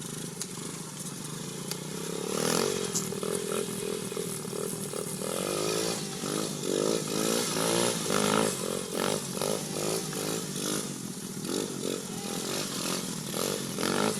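ATV engine running and revving up and down over and over, in quick rises in pitch about twice a second from about five seconds in.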